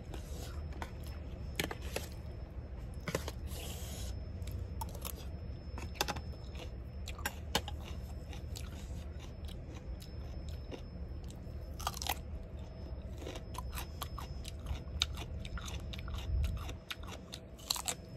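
A person eating close to the microphone: mouth sounds of chewing, with frequent sharp, irregular crunches from crunchy pork ear and crisp raw radish eaten with a rice-noodle salad.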